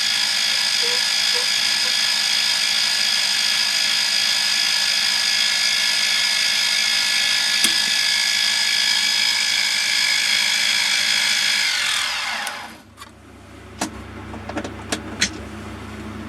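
Mini milling machine spindle running steadily with a high whine, not cutting. About twelve seconds in it is switched off and the whine falls in pitch as the spindle spins down. Then comes a low hum and a few light clicks.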